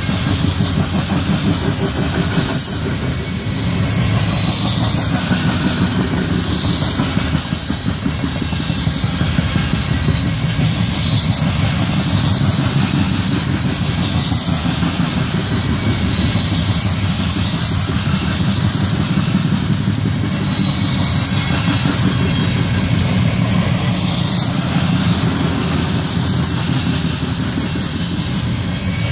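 Freight train of covered hopper cars rolling past close by: steady rumble and clatter of steel wheels on the rails.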